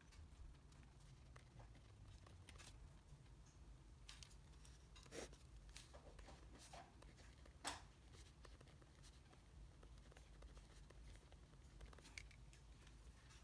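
Faint, scattered scratches and ticks of a pen writing on a paper notebook page, over near-silent room tone; the sharpest tick comes a little past halfway.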